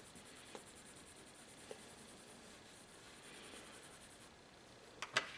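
Faint scratching of a white colored pencil on paper as it lays in a highlight, with a few light ticks and a sharp click a little after five seconds.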